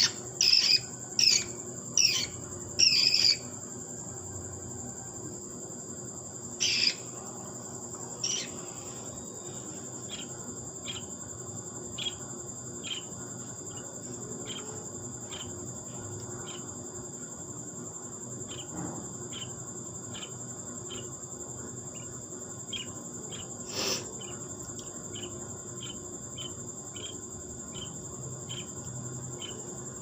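Baby budgie begging while being hand-fed: several loud, sharp chirps at the start, then a regular train of faint short chirps, a little more than one a second. A steady high-pitched tone runs underneath.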